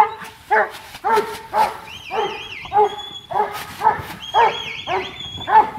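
Sheepdog barking steadily, about two barks a second, as it drives a mob of sheep through the yards. A high warbling whistle comes in twice between the barks.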